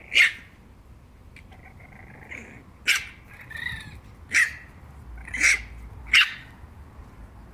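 Boston Terrier puppies giving short, high-pitched yips, about six of them spread over several seconds.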